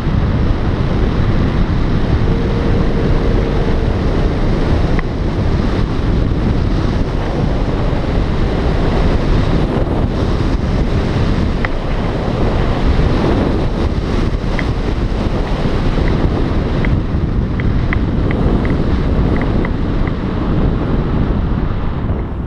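Steady, loud wind rushing and buffeting over the microphone in flight under a tandem paraglider. A brief low steady tone sounds about two seconds in, and a run of short high beeps follows in the second half.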